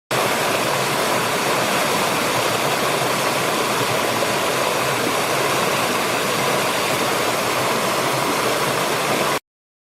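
Waterfall: a steady rush of falling water that starts and cuts off abruptly.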